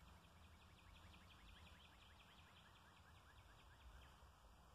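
Faint songbird trill: a long run of quick, evenly spaced falling notes lasting about four seconds, over a low steady rumble.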